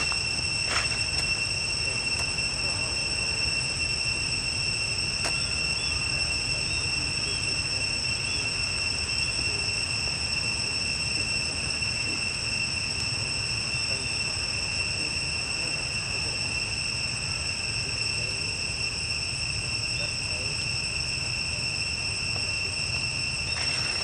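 Steady high-pitched drone of insects, unbroken throughout, over a constant low rumble, with a few faint chirps a few seconds in.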